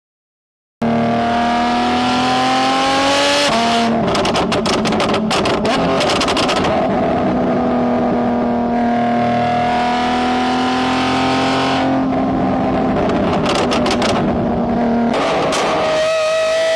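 High-performance car engine revving hard and accelerating, its pitch climbing and then stepping at gear changes about three and a half, twelve and fifteen seconds in. A stretch of rapid crackles comes between about four and six seconds in. It cuts in after a brief moment of silence.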